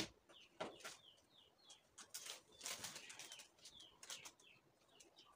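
Quiet, scattered scrapes and light knocks as a termite-eaten plywood cabinet panel is shifted and worked loose, a handful of short scuffs spread through the few seconds, with faint chirps in the background.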